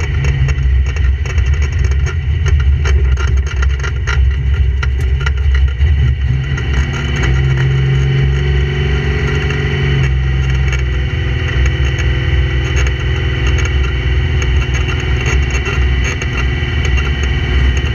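Drag-race Mustang's engine running, heard from inside the cabin. Its note rises a little from about seven seconds in and drops back at about ten seconds.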